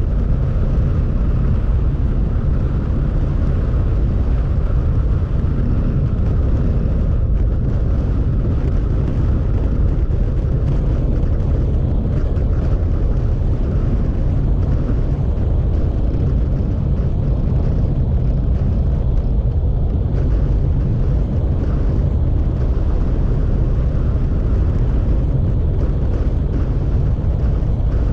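A motorcycle cruising at steady road speed, heard from the rider's seat: its engine running steadily under heavy wind rumble on the microphone, all a dense, unbroken low rumble.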